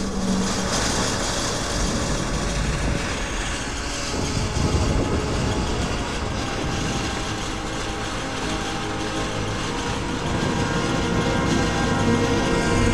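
Replica Panther tank on the move: its engine running and steel tracks clanking steadily, with thin metallic squeals near the end.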